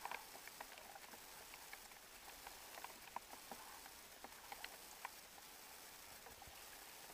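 Quiet canoe paddling: faint scattered drips and small ticks of water, most of them in the first five seconds, over a low hiss.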